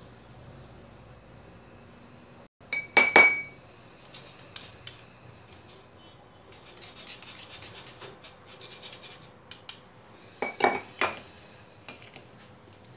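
Metal spoon scraping cocoa powder through a small stainless-steel mesh sieve, a fine scratchy rubbing, with sharp metal clinks of spoon on sieve: a loud one about three seconds in and a few more around ten to eleven seconds.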